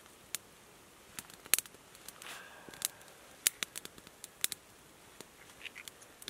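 Small kindling fire of spruce twigs and dry splits just catching, with sharp, irregular snaps and clicks of twigs crackling and being laid on, about fifteen scattered through, and a brief rustle in the middle.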